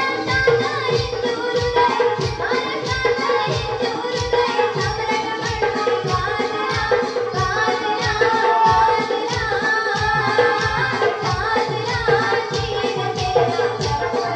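Live folk song for a tipri stick dance: young women singing into microphones over a hand drum keeping an even beat of about two strokes a second, with a held note sounding underneath.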